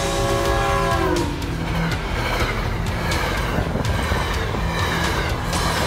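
MBTA commuter rail train sounding its horn chord, which drops in pitch about a second in as the locomotive passes. Then come the rushing rumble and clatter of the bi-level coaches going by at speed.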